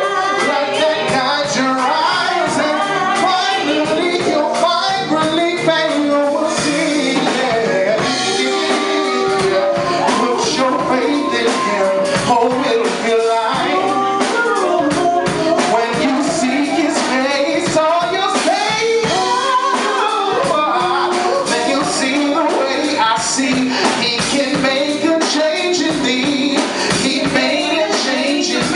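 Live gospel song: a male and a female singer over a band with drums and tambourine.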